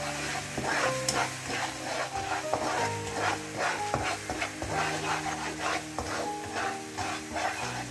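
A slotted nylon spatula scraping and stirring a sizzling spice paste around a nonstick wok, in quick repeated strokes about two to three a second, as the garlic, coriander and ginger fry with sugar and sweet soy sauce. Soft background music plays underneath.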